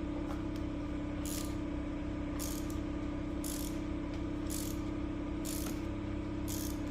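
Hand ratchet clicking in short strokes, about one a second, while working a spark plug socket, over a steady low hum.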